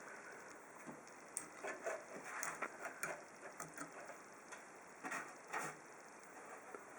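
Irregular light taps, clicks and short rustles of a cat pawing at a computer, a few a second at uneven intervals, with small clusters about two and a half and five and a half seconds in.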